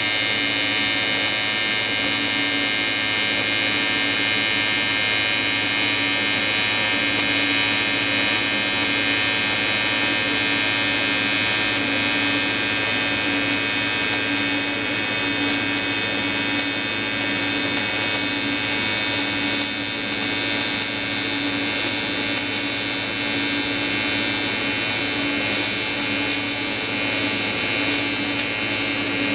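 AC square-wave TIG welding arc from an Everlast 325EXT buzzing steadily, an even harsh electric buzz with a strong hum.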